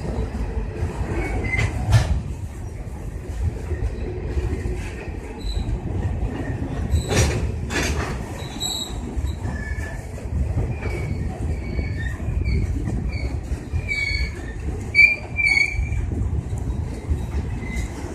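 Freight train rolling past with a steady low rumble, a few sharp clanks from the wagons, and a run of short, high wheel squeals in the second half, loudest near the end.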